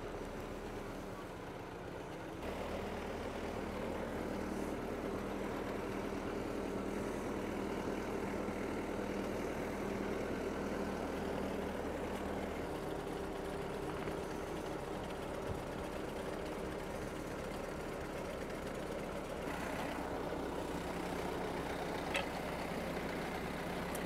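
Yanmar compact tractor's diesel engine running as its front loader works a log, the engine speed stepping up and down a few times. There is a small click near the end.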